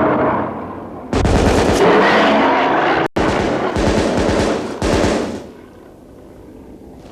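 Rapid gunfire from the hunters' rifles in two long runs of shots, the first starting about a second in and the second just after a brief gap near three seconds, stopping about five and a half seconds in.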